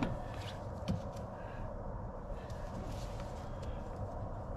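A few light clicks and a knock from hand work on the rear seat in the car's footwell, the sharpest at the start and about a second in, over a steady background hum.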